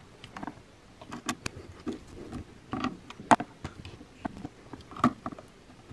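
Scattered light clicks and rustles of hand tools and wires being handled at a VFD's terminal block: a screwdriver at the terminals, then wire strippers working a wire end. The sharpest click comes a little past three seconds in.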